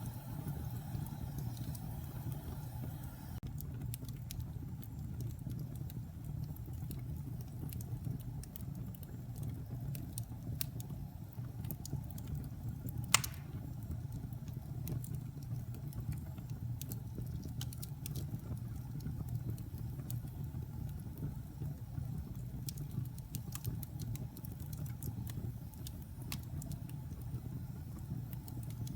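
Wood logs burning in a fireplace: a steady low rumble of flame with scattered sharp crackles and one loud pop about halfway through.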